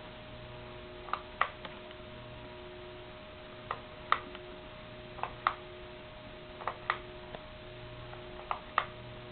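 Sierra Victorian Copy ceiling fan running on low speed with a steady motor hum and a regular ticking: a pair of light clicks about every second and a half.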